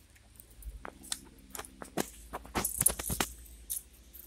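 A string of light, sharp clicks and metallic rattles, irregular and thickest in a cluster a little past halfway, over a faint low rumble.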